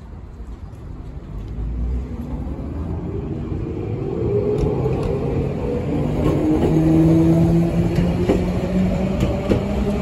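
Budapest HÉV suburban electric train pulling away from the platform. Its motor hum climbs steadily in pitch and grows louder as it gathers speed, with sharp wheel clicks over the rails in the second half.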